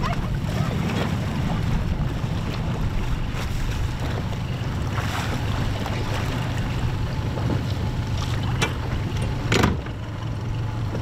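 Steady low hum of an outboard motor on a small boat, under wind and choppy water noise. A single thud stands out near the end.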